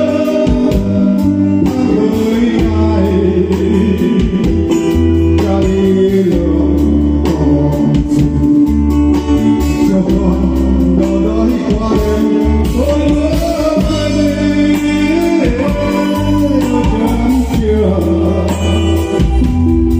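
Live band music played loud through a PA: a man singing into a microphone over electronic keyboard and a drum kit, with a steady bass line and regular drum strokes.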